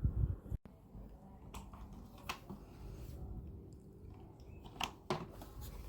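A few light clicks and taps of small trolley parts being handled, such as wheels and locking pins, over a low steady hum.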